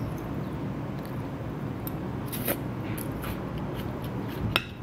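Fork picking at kale salad in a glass container: a few faint clicks and scrapes, one sharper click near the end, over a steady low background hum.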